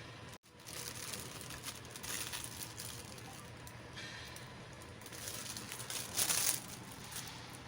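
Packaging crinkling and rustling as it is handled during a toy unboxing, in several irregular bursts, the loudest about six seconds in. The sound cuts out briefly just under half a second in.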